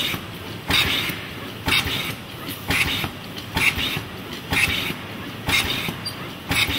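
Overhead pick-and-place robot cycling about once a second, each cycle a short burst of hiss, over the steady running of the conveyor machinery.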